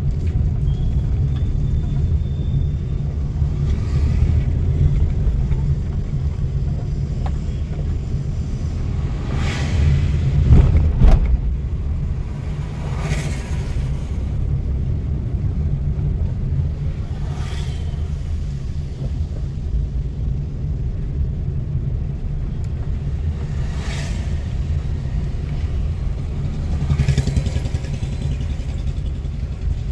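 Steady low rumble of a car's engine and tyres heard from inside the cabin while driving slowly along a town street. Other vehicles pass now and then, the loudest about ten seconds in.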